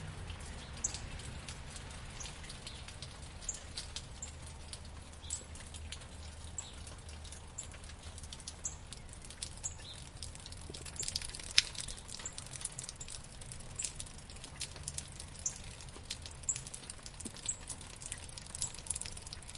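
Rain in a backyard: irregular drops ticking and pattering on hard surfaces, thickening in the second half with one louder drip about eleven and a half seconds in, over a low steady city hum.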